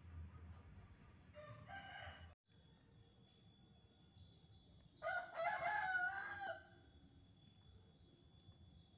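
A rooster crowing: one long crow of about a second and a half, about halfway through, after a shorter, fainter call near the start.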